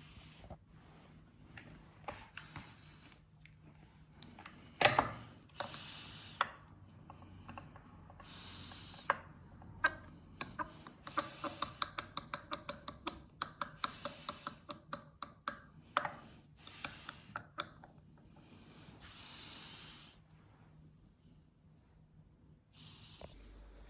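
Clicks and clinks of hand tools and metal parts being handled, with one loud knock about five seconds in and a run of quick, regular clicks, about four or five a second, in the middle, between short patches of rustling.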